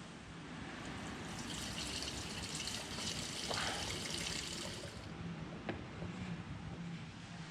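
Fuel being poured into a dirt bike's petrol tank: a trickling, hissing pour that lasts about three and a half seconds, followed shortly by a single sharp click.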